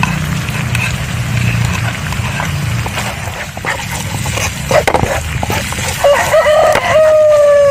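Wooden spatula stirring and scraping sauce in a frying pan, with scattered clicks and knocks against the pan. A rooster crows near the end, its long last note falling away.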